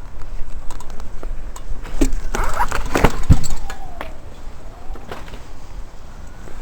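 Metallic clinks and knocks, loudest in a cluster about two to three seconds in, over a rumble of wind on the microphone. A faint tone falls and then rises near the end.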